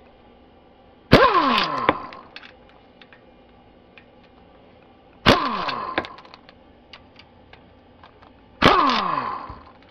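Transmission pan bolts being broken loose with a 1/4-inch drive ratchet and socket: three times, about a second in, about five seconds in and near the end, a sharp crack followed by a short falling squeal as a bolt lets go.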